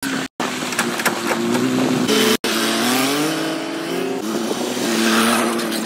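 Vehicle engine running and revving, its pitch rising and falling, broken by two very short dropouts, one just after the start and one a little over two seconds in.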